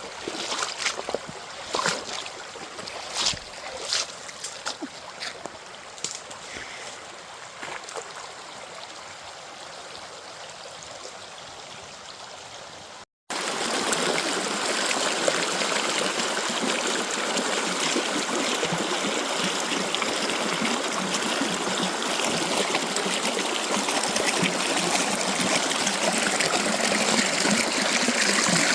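Running water of a waterfall and its stream. For about the first thirteen seconds it is quieter, broken by a few sharp splashes from wading. Then it cuts out for an instant and returns as a louder, steady rush.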